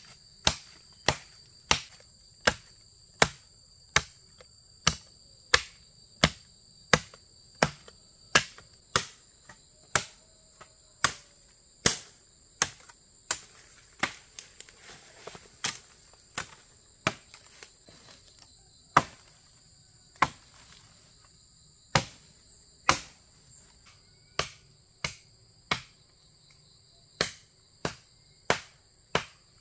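Sharp knocks repeating about once or twice a second, with a few short pauses, over a steady high-pitched insect drone.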